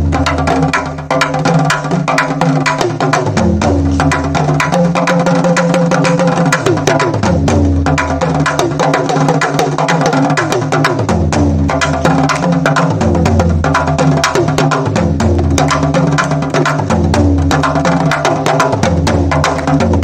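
Percussion jam: an African talking drum playing fast strokes with gliding pitch bends together with Indian folk hand drums, over sustained low notes that change every couple of seconds.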